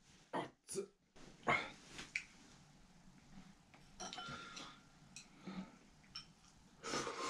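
Tableware being handled: a handful of short, light clinks and knocks of chopsticks against a small bowl, the loudest about a second and a half in, with quieter handling sounds after.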